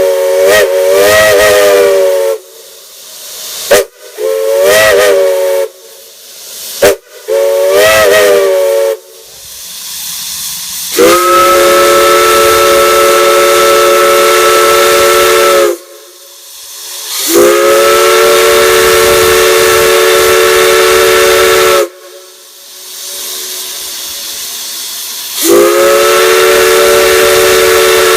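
Multi-chime steam whistle sounding a chord of several notes at once. It starts with short, feathered blasts whose pitch wavers, two of them opening with a sharp crack, then gives three long steady blasts. Steam hisses between the blasts.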